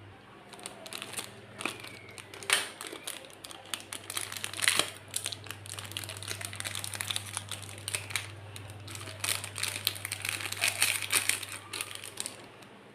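Packaging crinkling and rustling as it is handled and unwrapped, with many irregular crackles and a few sharper snaps, over a steady low hum.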